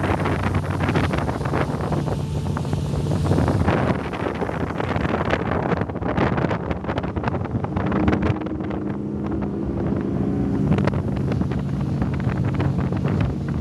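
Fountain Lightning powerboat's engines running under way, with wind buffeting the microphone. The engine note climbs about eight seconds in and settles back down near eleven seconds.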